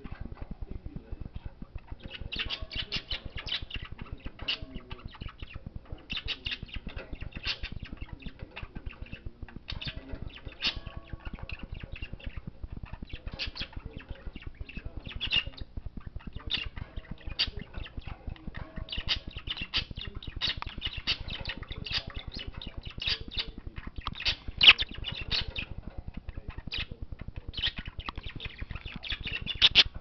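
Budgerigar chattering in runs of short, scratchy, clicking notes with brief gaps between them, and one louder click about two-thirds of the way through.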